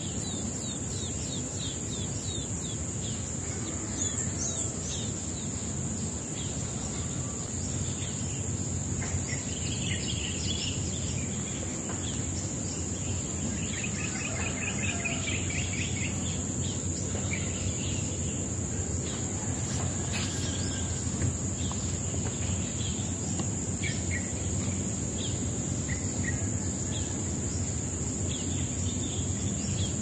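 Steady high-pitched insect drone, with scattered bird chirps and a short rapid trill about fourteen seconds in, over a low outdoor rumble.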